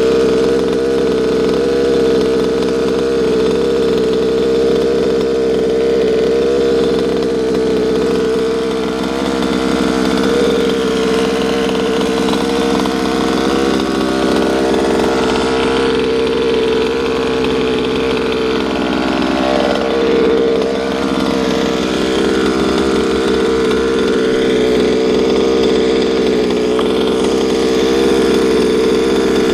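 HPI Baja 5SC RC truck's big-bore two-stroke gasoline engine running steadily at a near-constant speed, exhausting through a silenced side-exit pipe.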